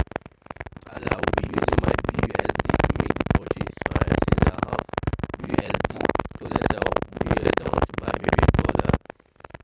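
Background music playing over the screen recording, loud and continuous, with brief drops near the start and near the end.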